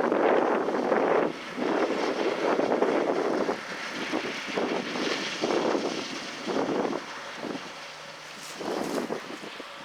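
Wind buffeting the microphone in uneven gusts that ease off toward the end, over the faint steady hum of harvesting machinery working in the field.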